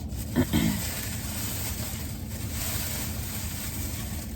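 Steady low rumbling background noise with a faint hum, and one short voice-like sound about half a second in.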